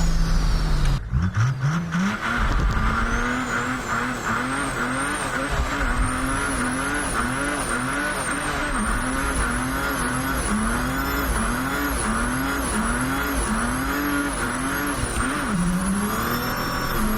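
Mercedes OM606 3.0-litre inline-six turbodiesel, running on big turbo boost, revving hard. Its pitch climbs about a second in, then rises and falls in quick repeated swells. A high turbo whistle follows the engine's pitch.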